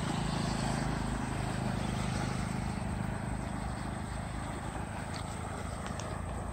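Water rushing steadily out of a concrete culvert pipe and churning into the channel below.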